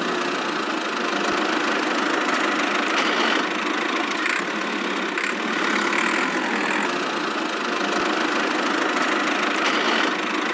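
Miniature DIY tractor's engine sound running steadily at an even speed.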